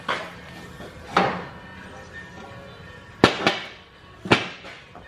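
Four sharp hammer blows on the steel chassis tubing, each ringing briefly; the last two are the loudest. They are spaced about a second apart, with background music underneath.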